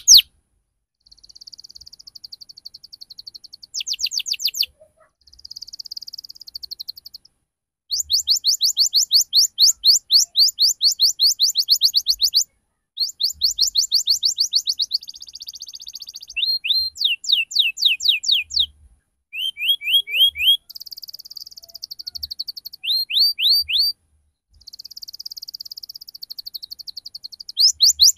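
Domestic canary singing in phrases: fast rolling trills of rapidly repeated high notes alternating with buzzy twittering, with short pauses between phrases.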